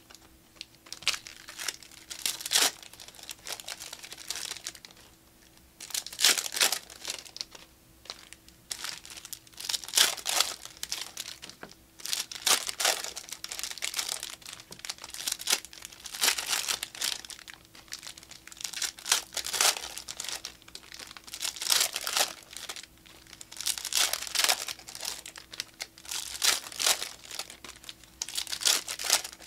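Plastic wrappers of Panini Prizm Fast Break basketball card packs crinkling and tearing as the packs are ripped open one after another, in repeated bursts every second or two.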